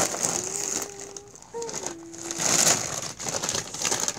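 A plastic chip bag crinkling and rustling in irregular bursts as it is handled and lifted.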